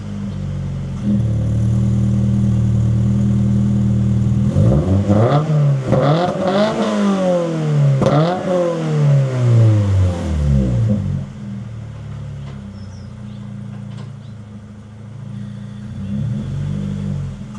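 A 2025 Toyota GR86's 2.4-litre flat-four engine running through a freshly installed HKS Hi-Power single-exit exhaust. It idles, is revved about three times a few seconds in, each rev rising and falling back, and then settles to idle again.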